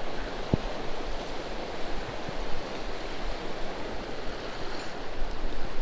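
Steady hiss of rain and wind on open water, with one light knock about half a second in.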